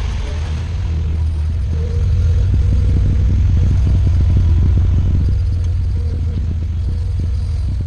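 Bobcat skid steer engine running hard, with rattling and clattering knocks over the middle of the stretch; it gets louder about two seconds in and drops off suddenly at the end.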